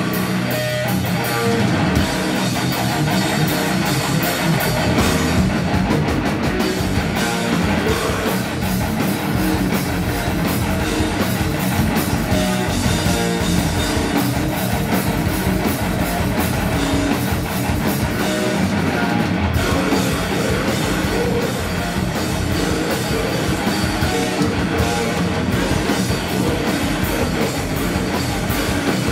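Heavy metal band playing live at full volume: distorted electric guitars and bass over fast, busy drum kit with crashing cymbals.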